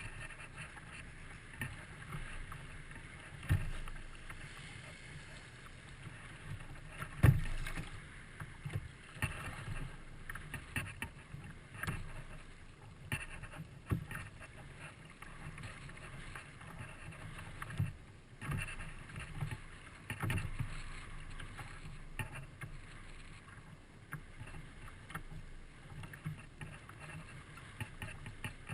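Kayak on open water in strong wind: wind noise and water against the hull, with irregular knocks and thumps, the loudest about seven seconds in.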